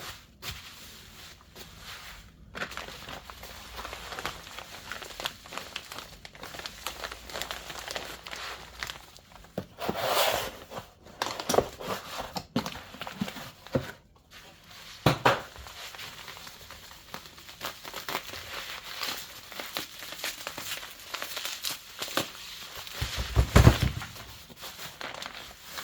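Packaging wrap crinkling, rustling and tearing as a new camshaft is unwrapped by hand, in irregular bursts. Near the end a heavy thump, the loudest sound.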